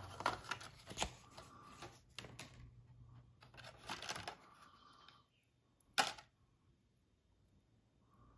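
Clear plastic blister pack being pried open and handled: a run of crinkles and clicks for the first few seconds, a cluster more about four seconds in, and one sharper click about six seconds in.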